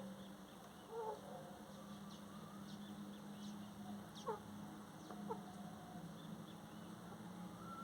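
Faint countryside ambience: scattered short bird chirps and a few brief animal calls over a low steady hum.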